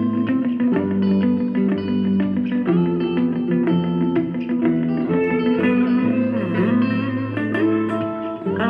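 Background music led by a plucked guitar, with held notes and changing chords.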